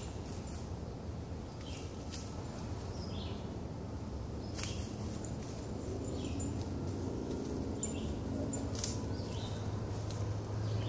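Woodland ambience: scattered short bird chirps over a steady low rumble, with a few brief clicks or rustles.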